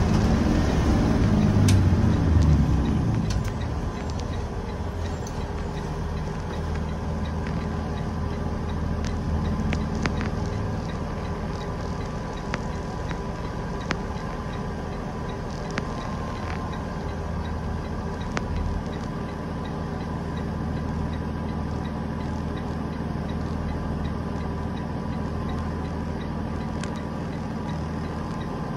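Cummins ISB 6.7-litre diesel of a school bus heard from inside the cab. It is louder for the first few seconds while the bus is still moving, then drops to a steady idle about three seconds in as the bus sits stopped.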